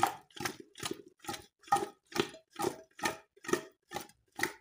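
Chunks of pork rib, potato and vegetables tumbling and sloshing in a pressure cooker pot as it is shaken by hand to mix in the seasoning, about two and a half shakes a second.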